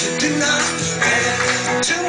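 Live song with an acoustic guitar strummed and an electric guitar played alongside, and a man singing.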